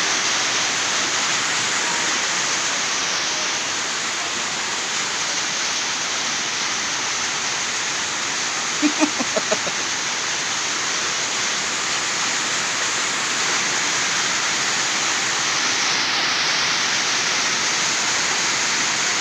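Steady rushing noise throughout, with a short run of four quick pitched pulses about nine seconds in.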